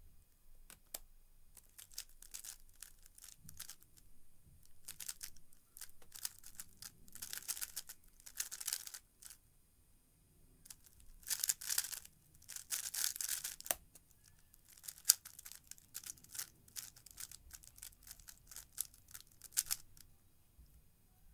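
3x3 speedcube being turned by hand: quick plastic clicking and rattling of layer turns, in dense fast bursts during a timed solve in the middle and sparser while scrambling either side. One sharp, louder click stands out about two-thirds of the way through.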